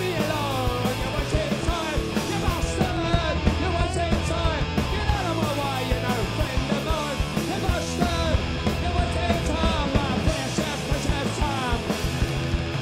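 Punk rock band playing live: electric guitars, bass and drums, with a shouted lead vocal over the top.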